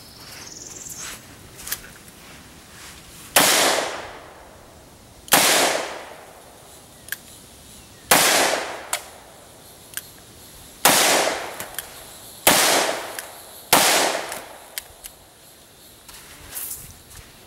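Six gunshots fired one at a time, spaced about one and a half to nearly three seconds apart, each trailing off over about a second. A few faint sharp clicks come between the shots.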